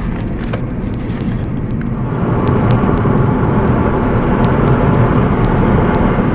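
Car driving at road speed, with engine and tyre noise heard from inside the cabin, getting louder about two seconds in.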